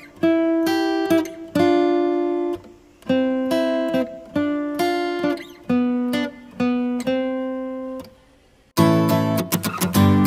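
Background music: plucked guitar notes, each ringing and fading, with a short break about eight seconds in, after which a fuller, faster strummed passage starts.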